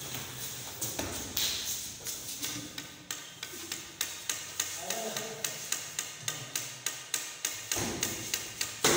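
Repeated sharp slaps and thuds of boxing gloves and kicks landing on chest guards and pads during sparring, settling into a quick, fairly even run of about three hits a second, with one louder hit near the end.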